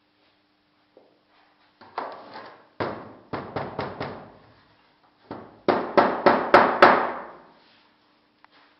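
Two runs of sharp knocks, about four a second, with a pause in the middle: a hand tool striking in a sand-casting moulding flask filled with moulding sand, around the wooden sprue and riser patterns.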